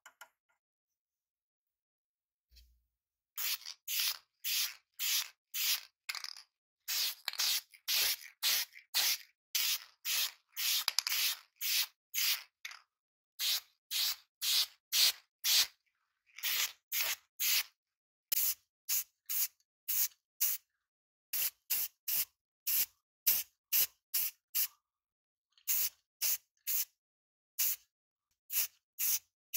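Aerosol spray paint going on in short hissing bursts, roughly two a second with brief pauses between runs, starting about three seconds in after near silence.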